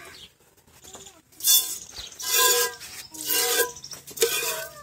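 Milk squirting from a cow's teats into a steel pail during hand milking: about four hissing squirts, a little under a second apart, starting about a second and a half in. Each squirt sets the pail ringing.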